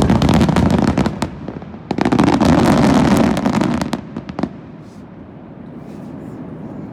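Fireworks going off in dense crackling volleys: a loud burst of rapid crackles starts suddenly, breaks briefly, and a second run of crackling follows about two seconds in, lasting about two seconds. A few last pops come near the middle, then it dies down to a low rumble.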